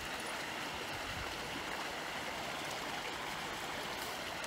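Steady rush of running water, an even hiss with no splashes or breaks.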